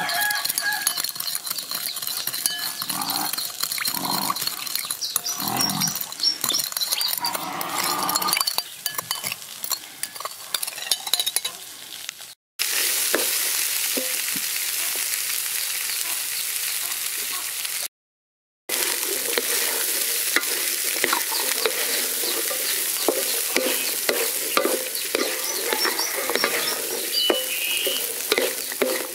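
A metal spoon clinking and scraping as it stirs a liquid mixture in a ceramic bowl. About twelve seconds in, after two short silences, sweet corn kernels sizzle in an aluminium wok with a steady hiss, stirred and scraped by a wooden spatula with many small clicks.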